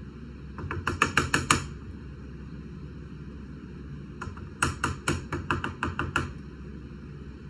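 Rapid knocking of a utensil against a mixing bowl while cake batter is scraped out into a baking pan: two runs of quick taps, one about a second long, then a longer one of about two seconds.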